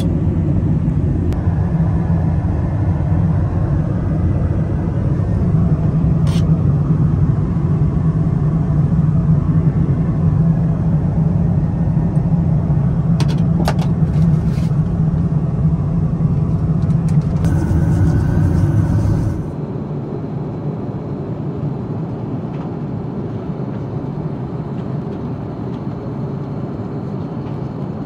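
Steady low drone of an Airbus A330-300 airliner's cabin in cruise, heard inside the lavatory, with a few brief clicks from handling the fittings. About two-thirds of the way through it drops suddenly to a quieter drone.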